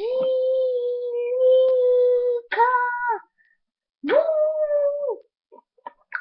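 A voice holding long drawn-out notes: one steady note of about two and a half seconds, a short higher one, then after a brief gap a third that rises at its start and holds for about a second. A few faint short sounds follow near the end.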